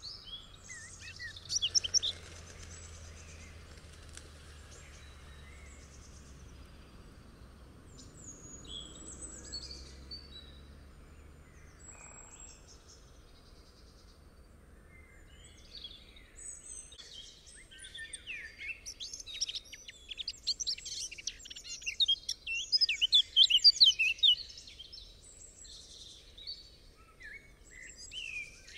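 Wild birds chirping and singing over faint background noise, with scattered calls at first and then a dense run of fast chirping in the second half.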